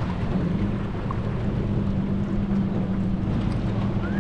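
Small aluminium boat's outboard motor running steadily, a constant hum.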